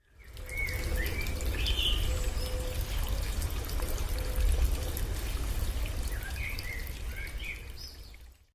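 Water trickling in a stream, with short chirping bird calls about a second in and again near the end, over a steady low rumble. The sound fades in at the start and fades out at the end.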